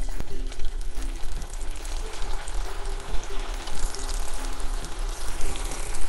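Taro root (colocasia) slices deep-frying in hot oil: a steady, dense crackling sizzle of bubbling oil.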